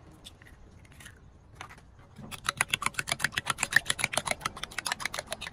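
Metal spoon beating an egg into sauce in a ceramic bowl, clinking rapidly against the bowl at about eight strokes a second. The clinking starts about two seconds in.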